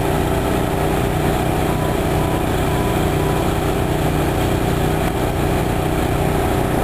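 An engine running steadily, a constant drone under a wide hiss.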